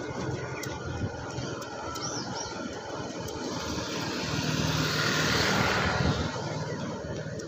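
A motorcycle passes close by. Its engine and tyre noise swell to a peak a little past the middle and then fade, over the rough, irregular footfalls of a small group of runners on a paved road.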